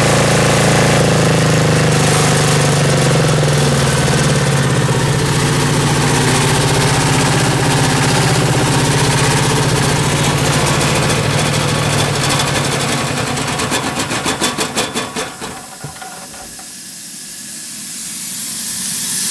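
Diesel engine of an Ingersoll-Rand MC-2A rotary air compressor running steadily, then shut down: about 13 s in it slows into separate chugs and stops about 16 s in. A hiss follows and grows louder near the end.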